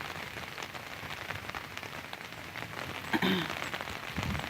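Steady rain falling, with many small, sharp drop ticks close to the microphone. A short vocal sound comes about three seconds in.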